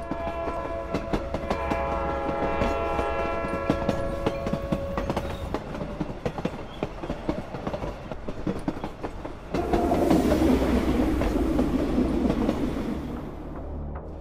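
Train running on rails, its wheels clattering with many sharp clicks over a steady deep rumble. A long steady horn sounds for about the first five seconds, and about nine and a half seconds in the running noise grows louder.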